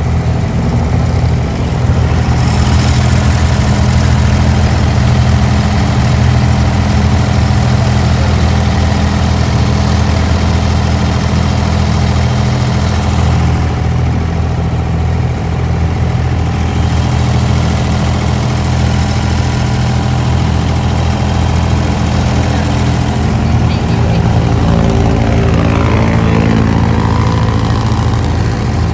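Engine of a wooden abra water taxi running steadily, heard from on board as a deep, even hum; the low rumble grows about three-quarters of the way through.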